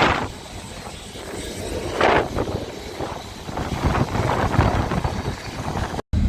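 Open-top boat tram running, its ride rumble mixed with wind buffeting the microphone, swelling louder a few times.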